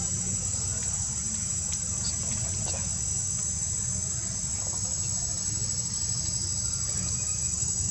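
Steady, unbroken high-pitched insect chorus, with a low rumble underneath.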